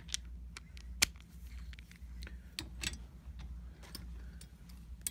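Irregular sharp metallic clicks and taps from a ratchet wrench and socket being handled and worked, with one louder click about a second in.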